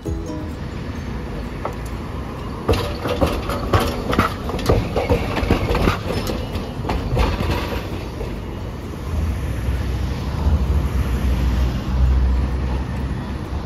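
Hiroden 800-series streetcar passing close and rolling over the junction's curved track, its wheels clacking in a quick run of knocks over the rail joints and crossings. It then rumbles on as it moves away.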